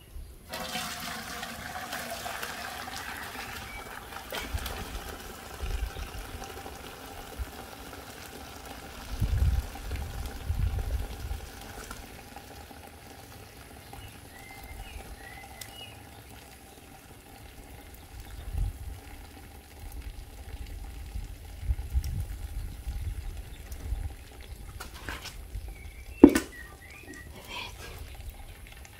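Hot pine-cone decoction poured from a heavy pot through a strainer: liquid pouring and splashing, fullest in the first few seconds. A single sharp knock near the end.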